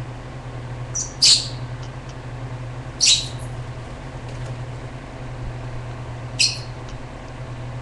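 Pet lovebirds giving short, high calls: two close together about a second in, another about three seconds in, and one more after six seconds. A steady low hum runs beneath.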